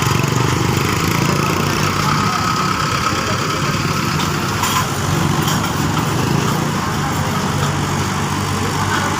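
Diesel tractor engine running steadily at a constant speed.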